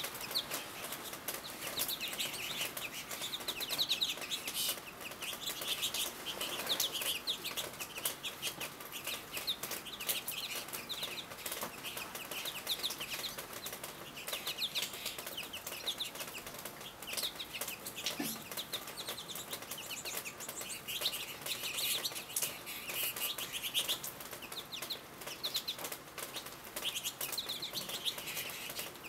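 A flock of American goldfinches twittering: many overlapping runs of quick, high chirps, with wing flutters as birds land on and leave the feeders.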